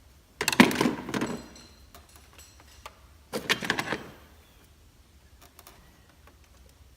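Ratchet wrench loosening an Allen bolt on the fuel rail: two bursts of rapid metallic clicking, the first about a second long, the second shorter about three seconds in.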